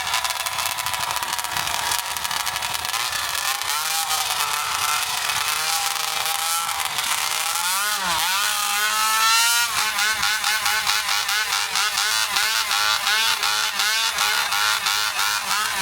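Oversized modified racing chainsaw (a hot saw) with a side exhaust pipe, running and revving hard: its pitch swings up and down, climbs steeply around eight to nine seconds in, then rises and falls rapidly over and over from about ten seconds in.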